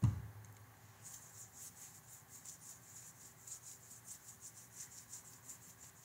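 A single dull low thump, then a run of faint, quick ticks, about five a second.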